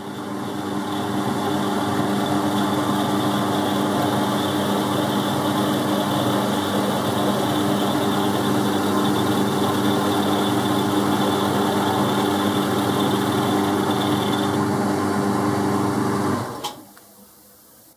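Boxford lathe running with a milling cutter turning in the chuck: a steady motor and gear hum with several even tones, coming up to speed at the start and stopping about 16.5 seconds in.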